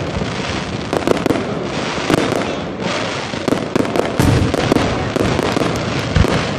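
Aerial fireworks display: shells bursting one after another in a dense run of bangs and crackles, with heavier booms about four and six seconds in.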